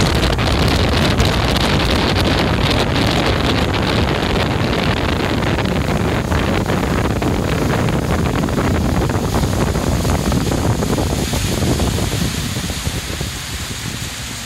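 A 90 hp Tohatsu outboard motor driving an aluminium jon boat at speed, with heavy wind on the microphone and water rushing past the hull. About two seconds before the end, the sound dies down as the boat slows.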